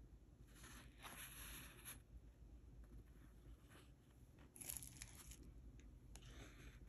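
Faint rustling and scraping of paper being handled, in three short bursts.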